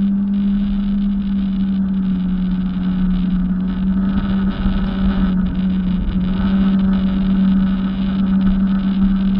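Jet ski engine running at a steady speed, its pitch dipping slightly around the middle.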